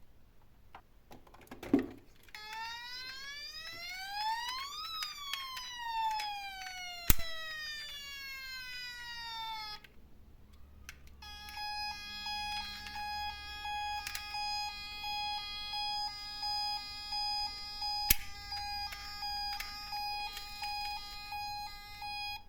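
Emergency-vehicle siren with a buzzy electronic tone. One slow wail rises and falls, then a steady tone pulses about once a second. Sharp knocks sound three times and are the loudest thing.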